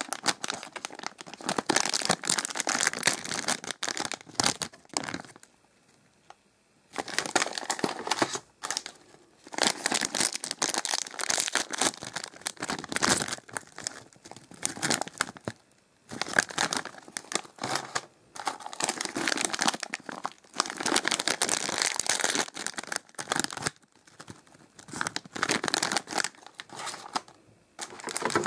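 Foil snack bags crinkling and rustling as they are handled and torn open, in bursts with short pauses.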